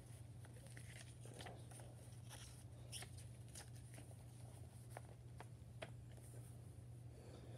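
Faint rustling and light clicks of a folded paper pamphlet being handled and flipped over on carpet, over a steady low hum.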